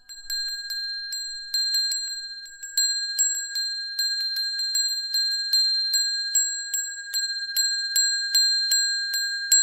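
A small high-pitched bell struck over and over, about two to three strikes a second, each strike ringing on into the next, with no other sound behind it.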